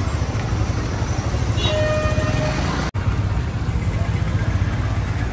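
Street traffic heard from a moving two-wheeler: a steady low engine and road rumble, with one vehicle horn sounding for under a second about two seconds in.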